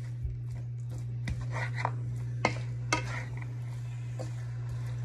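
A wooden spoon stirring chicken pieces in a hot non-stick pan, knocking against the pan several times at irregular intervals over a soft sizzle of frying, with a steady low hum underneath.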